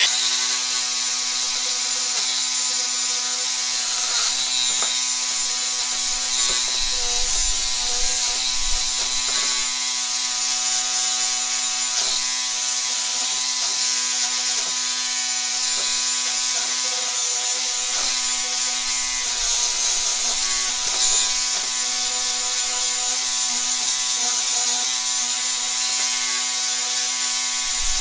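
DeWalt 20V Max cordless angle grinder with a wire cup brush running against aluminum trim. A steady motor whine sits under a loud hiss of wire scrubbing metal as the oxidized surface is brushed to a bright satin finish.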